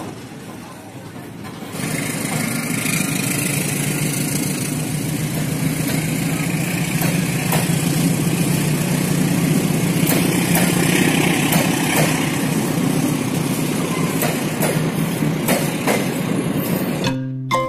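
Passenger train passing slowly alongside the platform: a steady engine drone that starts about two seconds in, with scattered clicks from the wheels on the rails.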